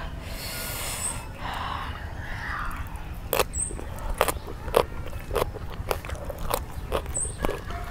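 Close-up crunching and chewing of a mouthful of raw carrot: sharp, irregular crunches that start about three seconds in and keep coming, the loudest a little after the middle.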